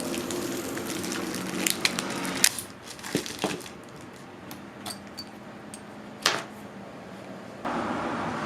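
Scattered small metallic clicks and clinks from the parts and tools of a suitcase TSA lock being handled during its replacement. A steady background hum drops away about two and a half seconds in and returns near the end.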